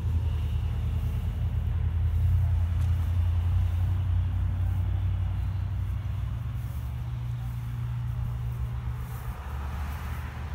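Steady low rumble of an idling engine, a deep even hum that eases slightly in level toward the end.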